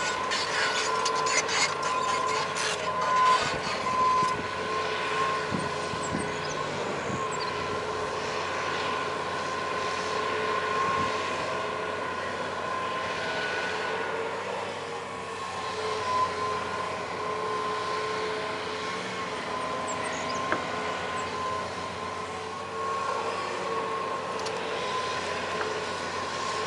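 John Deere excavator working: the machine runs steadily with a constant whine, and knocks and scrapes are heard through the first several seconds.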